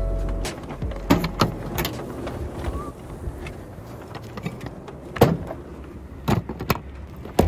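Scattered clicks and sharp knocks of a plastic bait bucket being handled, lifted out of a pickup truck and carried by its handle. The loudest knock comes about five seconds in.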